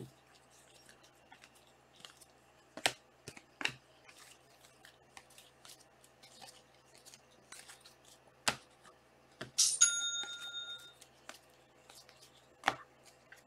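Trading cards being handled: scattered soft clicks and taps as cards are flipped and slid over one another. About ten seconds in, a short chime sounds with several steady tones held for about a second.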